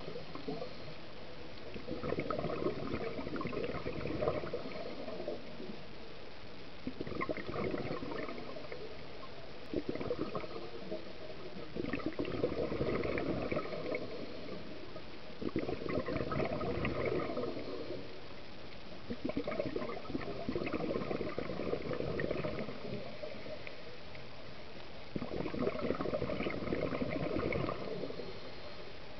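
Scuba diver's exhaled breath bubbling out of the regulator underwater, in gurgling bursts of a few seconds roughly every four to five seconds, with quieter gaps between them.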